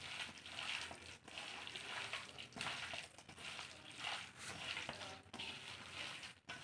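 A hand squishing and kneading chicken pieces in a thick spice paste in a stainless steel bowl: soft, wet squelching in uneven strokes.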